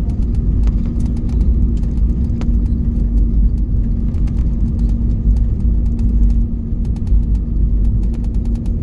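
Airliner cabin noise as the plane rolls on the ground after landing: a heavy steady rumble with a constant hum and frequent small rattles and clicks from the cabin fittings.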